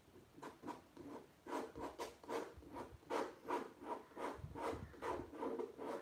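Small metal palette knife scraping and spreading thick acrylic paint across a stretched canvas in quick repeated strokes, about three a second.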